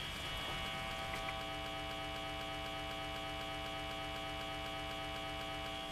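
A quiet, steady electronic drone of several held tones with a faint, evenly pulsing low end: background music sustaining a chord.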